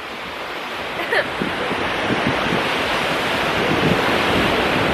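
Ocean surf washing onto the beach, its rush swelling steadily louder, mixed with wind buffeting the microphone.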